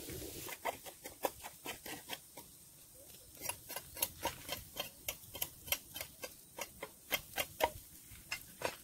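Grill fire crackling with sharp, irregular snaps and pops, a few each second, as quail roast over it.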